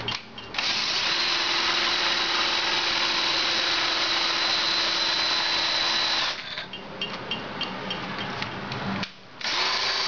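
Handheld electric drill driving a homemade coil winder's slide table, running at a steady speed with a held motor whine. About six seconds in it drops to a slower, quieter run with regular ticking, stops briefly just before the end, then runs up to full speed again.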